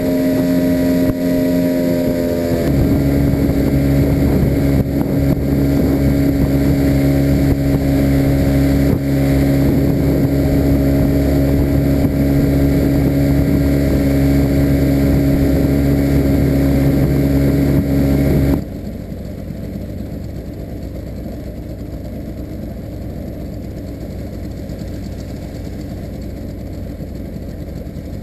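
A small boat's outboard motor running steadily under way, a hum of several held tones over water and wind noise. It changes note about three seconds in. About two-thirds of the way through the engine sound stops suddenly, leaving a much quieter, even rush.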